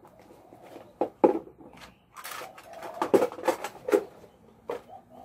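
Small plastic food tubs knocking and clacking together as they are packed into a backpack by hand, with a few sharp knocks and a short scraping rustle between them.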